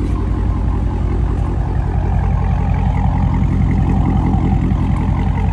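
Dodge Charger Scat Pack's 6.4-litre HEMI V8 running steadily at a low, even pitch.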